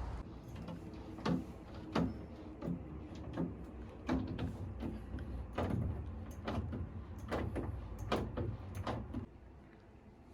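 A series of irregular knocks and clunks, roughly one every half second to second, over a low rumble that stops about nine seconds in.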